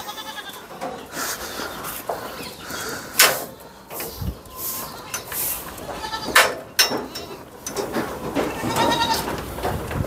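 Goats in a raised shed bleating repeatedly, several short calls that overlap and grow busier in the second half, with a few sharp knocks among them.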